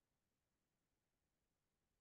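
Near silence: a pause between spoken sentences, with no other sound.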